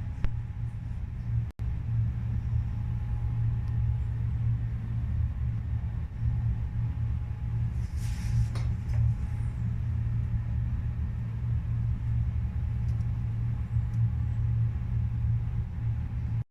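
A steady low rumble, broken by a momentary dropout about a second and a half in, with a short hissing burst about eight seconds in.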